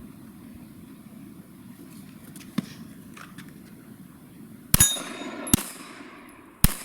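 Three 9mm pistol shots from a Glock 34, the last two coming about a second apart, fired at an 8-inch steel gong. The first is followed by a metallic ring. Before the shots there is only a low steady background.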